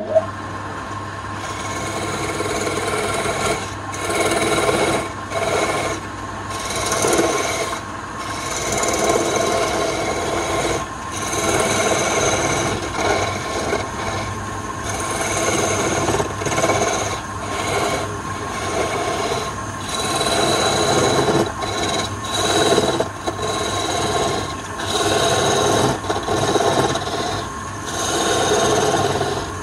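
Wood lathe switched on with a click at the start and running with a steady hum, while a hand-held steel chisel scrapes and cuts the end of the spinning wood spindle. The scraping swells and fades every second or two as the tool is pressed in and eased off.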